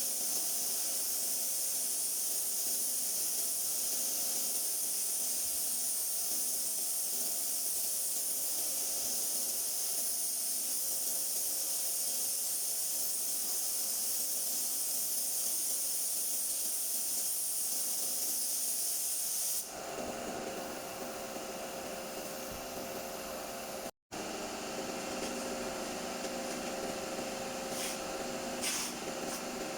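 Compressed-air paint spray gun hissing steadily, then cutting off abruptly about two-thirds of the way through; a quieter steady hum remains afterwards.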